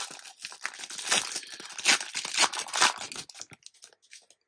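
A trading card pack's wrapper being torn open, a run of crinkling and tearing rustles that dies away after about three and a half seconds.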